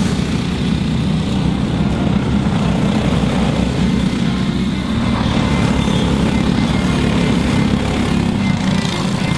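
Racing go-kart engines running on the circuit, a steady drone with no clear single pass.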